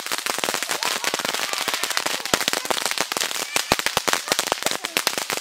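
Ground fountain firework spraying sparks, giving off a dense, rapid crackle of small sharp pops.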